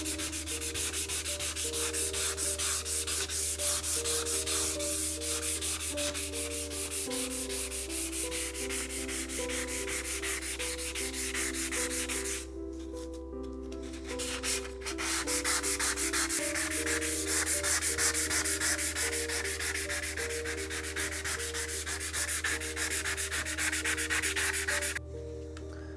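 220-grit sandpaper rubbed back and forth by hand along the steel blade of a handsaw, a rapid, steady run of rasping strokes that cleans rust and grime off the blade. The strokes pause for about two seconds midway and stop shortly before the end.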